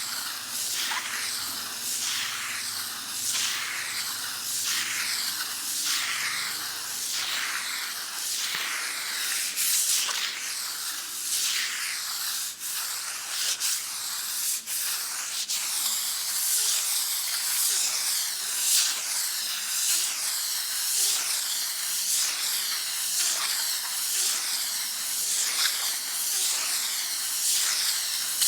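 Sandpaper rubbed back and forth on a wall by hand, a rasping stroke about once a second.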